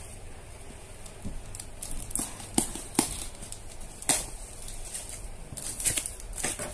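A cardboard parcel wrapped in bubble wrap being cut open with a box cutter and its flaps pulled back by hand: irregular sharp clicks, taps and crackles of cardboard and plastic, bunched around the middle and again near the end.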